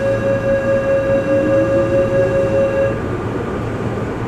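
Tokyo Metro Ginza Line 1000-series subway train pulling away, heard from inside the car. A steady electric whine, with a rising tone beneath it from the traction motor drive, plays over the running rumble. Both tones stop about three seconds in as the train picks up speed.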